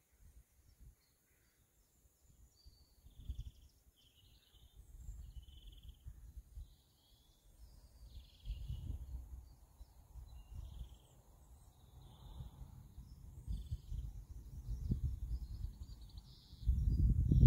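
Birds chirping on and off, short high calls scattered throughout, over an uneven low rumble of wind buffeting the microphone that grows in gusts and is loudest near the end.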